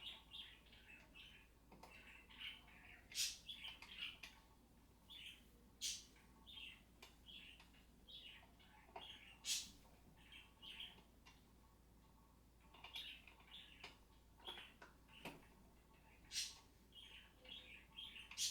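Allen wrench tightening the screws on an office chair's backrest mechanism: short repeated metal squeaks as the screws turn, with a sharp click now and then as the wrench is repositioned.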